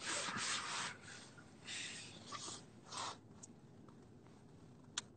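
Soft breathy noises and rustling close to a phone's microphone, fading after the first second, with one sharp click near the end.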